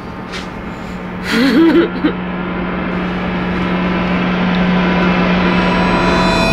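Edited-in suspense sound effect: a steady droning tone that swells slowly louder and cuts off suddenly near the end. A brief voice sounds about a second and a half in.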